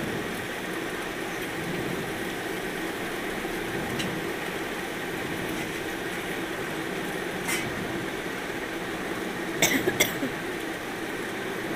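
Sliced potatoes and flat beans frying in a karai over high heat in a little oil, with no water added, giving a steady sizzle. A few short clicks come about four, seven and ten seconds in.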